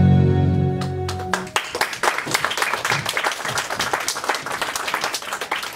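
Held chords of stage music end about a second and a half in, and an audience breaks into steady applause that carries on to the end.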